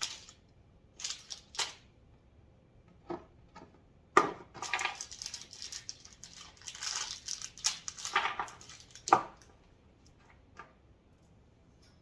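Rustling, scraping and small clicks as the parts of a metal tool rack are handled during assembly, with two sharp knocks about four seconds in and again near nine seconds.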